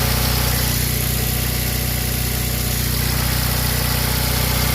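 Mitsubishi Lancer Ralliart's four-cylinder engine idling steadily and smoothly. It is running again after a blown fuse feeding the fuel-injection relay was replaced with a new 20-amp fuse.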